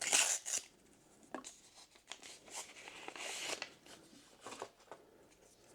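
A foil booster pack crinkling sharply as it is torn open, loudest in the first half second, followed by several softer rustles and swishes of trading cards being handled.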